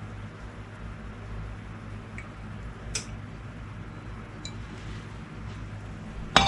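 Quiet kitchen handling over a steady low hum: a few faint ticks, one sharp click about three seconds in, and a loud clink of dishes right at the end.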